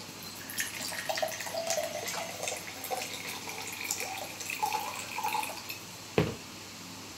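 Liquor poured from a small glass bottle into a glass tumbler, splashing and trickling for about five seconds. Then comes a single sharp knock as the bottle is set down on the table.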